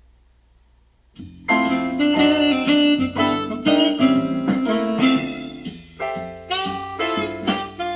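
A pre-recorded instrumental song accompaniment starts about a second in, played back from an electronic keyboard: a melody of short, distinct keyboard notes over a bass line.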